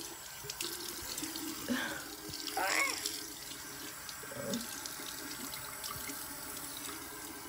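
Bathroom sink faucet running steadily into the basin, an even hiss of water.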